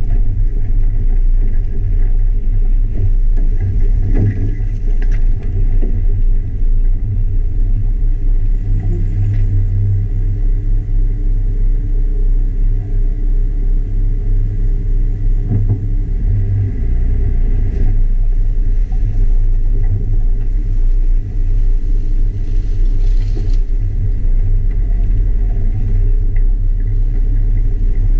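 Jeep Wrangler JK's engine running steadily at low speed with a constant low rumble, with a few faint knocks along the way.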